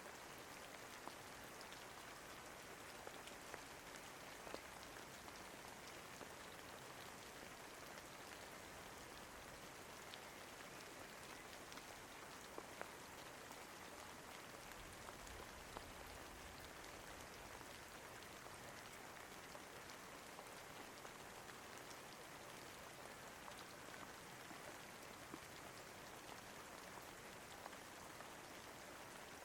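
Faint, steady rain falling, an even hiss with scattered single drop ticks.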